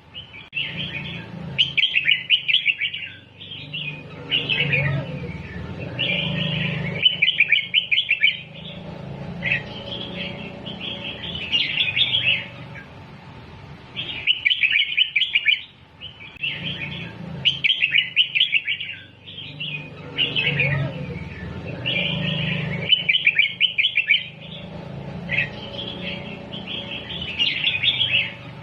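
Red-whiskered bulbul song: runs of rapid, chattering whistled phrases broken by short pauses. The same sequence repeats about every 14 seconds, as a looped training recording for teaching young bulbuls to sing.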